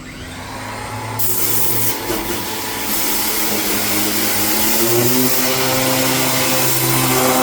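Power sander winding up and then running steadily, sanding old paint and primer on a steel car fender: a steady hum with a hiss of abrasive on the surface coming in about a second in.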